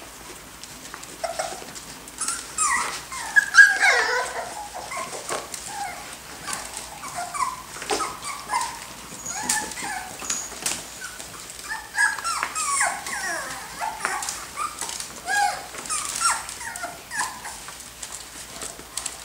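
Pumi puppies giving many short, high yelps and whines as they play together, mixed with light clicks and scuffles.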